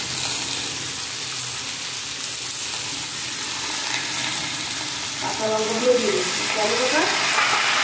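Mixed winter vegetables sizzling in hot oil in a metal kadai, with a steady frying hiss as bottle-gourd stems and leaves are tipped in on top.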